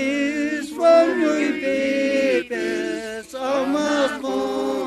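A group of voices singing a hymn in Quechua without instruments, in long held notes with short breaks between lines.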